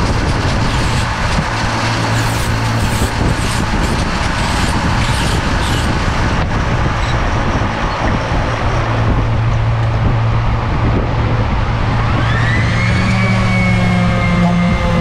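Steady whirring noise of running shop power tools, then about twelve seconds in a Ridgid random orbital sander spins up with a rising whine that levels into a steady tone as it sands the cork decoy body.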